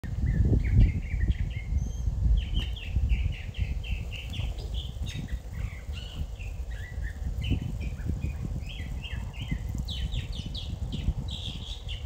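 Small birds chirping and twittering in rapid runs of short high notes, over a loud, uneven low rumble from outdoor noise at a rocky waterside.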